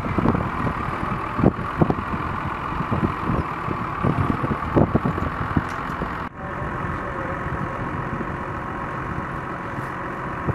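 Heavy diesel engine idling steadily, with irregular low knocks through the first half.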